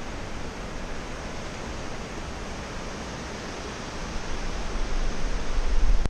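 Steady rushing of a stream pouring through channels carved in the rock, with a low buffeting rumble that swells over the last two seconds.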